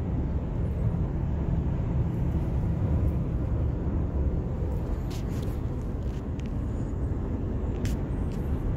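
Steady low road and engine rumble inside a moving car's cabin, with a few short clicks about five seconds in and again near the end.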